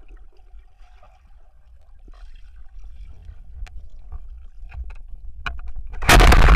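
Speargun fired underwater, heard through the camera's housing: a low water rumble with scattered faint clicks, then a sharp crack about five and a half seconds in as the spear strikes a fish. A sudden loud, noisy rush follows right after.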